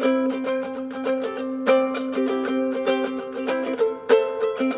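Live indie band playing an instrumental passage: a plucked string instrument picking quick notes over steady held notes.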